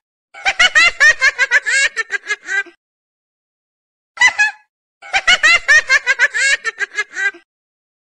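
Laughter sound effect: a run of quick, high giggling syllables lasting about two and a half seconds, then after a pause a short half-second snippet and the identical laugh again, as a looped clip.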